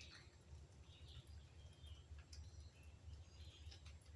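Near silence: background tone with a low steady hum and a few faint, brief high chirps.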